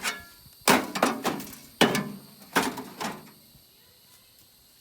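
Microwave oven's metal casing being struck: three or four hard crashing hits about a second apart, each trailing off in a rattle, then they stop about two thirds of the way through.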